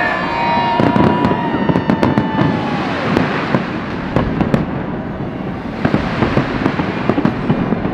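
Aerial fireworks bursting overhead in a dense barrage, with many sharp crackles and pops over a continuous rumbling wash.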